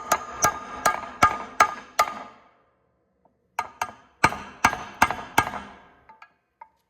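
Hammer blows on metal: a run of evenly spaced, ringing strikes about three a second, a pause, then a second run, ending in a few lighter taps.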